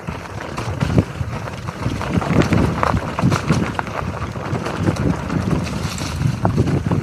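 Mountain bike riding fast down a dirt singletrack strewn with dry leaves: tyres rumbling and crunching over the ground, with the bike rattling and knocking over bumps. Wind noise on the microphone.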